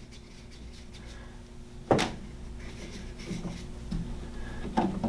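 A screwdriver working out the small screws on a Navien NPE tankless water heater's gas valve. There is one sharp click about two seconds in, then faint small clicks and scrapes, over a low steady hum.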